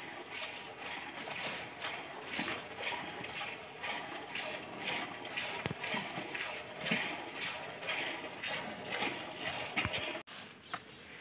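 Milk squirting into a steel bowl as a water buffalo is milked by hand: a short hissing splash with each pull on the teats, repeating in a rough, steady rhythm.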